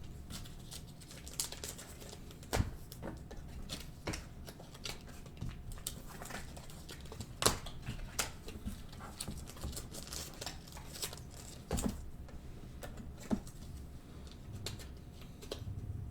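Trading cards being handled and flipped through: irregular soft rustles and light taps, with a few sharper clicks a few seconds apart.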